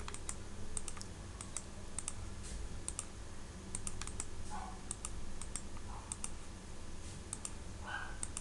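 Irregular, scattered clicks of a computer mouse and keyboard, over a low steady hum.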